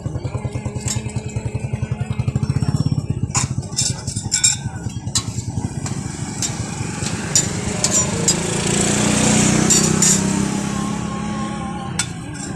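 A small engine running with a rapid, even pulse, strongest in the first few seconds, with scattered sharp clicks and taps in the middle.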